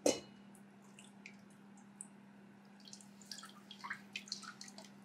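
A sharp knock at the start, then pudding mixture poured into a fine-mesh strainer set in a stainless steel bowl, pattering and dripping through the mesh. The dripping thickens about three seconds in.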